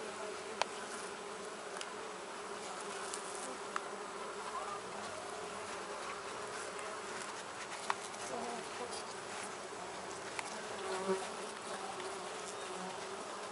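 Steady buzzing of a disturbed mandaçaia (Melipona quadrifasciata) stingless-bee colony in an opened hive box, with a few sharp clicks.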